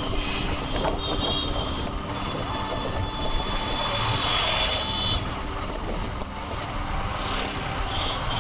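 Road traffic heard from a moving vehicle: steady engine and tyre noise from passing motorcycles and trucks, with wind on the microphone. A couple of brief high-pitched tones sound about a second in and again around four seconds in.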